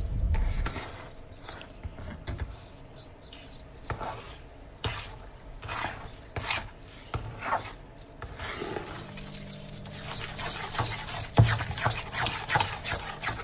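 A metal spatula stirring and scraping a thick, lumpy wheat-milk halwa mixture around a steel kadai, with sugar just added to loosen it. The strokes come in an irregular run of squelches and scrapes of metal on the pan.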